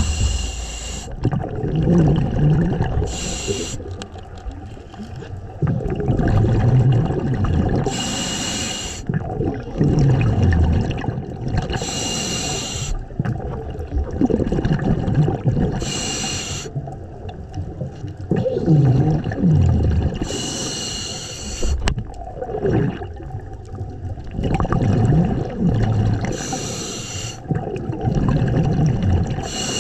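Scuba diver breathing through a regulator underwater: a short hiss with each inhalation, about every four seconds, and a low bubbling rush of exhaled bubbles in between.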